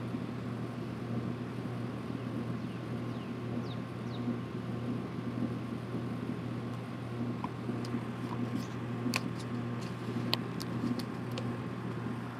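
Steady low mechanical hum with faint outdoor background noise, a few faint high chirps, and scattered sharp clicks in the second half.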